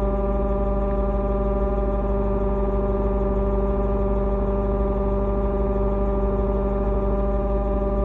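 Loud, steady buzzing hum from under the seats of a Lexus GS F, one unchanging pitch with many overtones. The owner doesn't know its cause.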